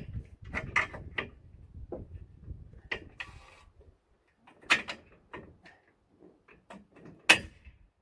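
Metal clicks and knocks from a tractor canopy's steel struts and pins being lined up and pushed into their mounting holes. The knocks come scattered, with the sharpest one near the end.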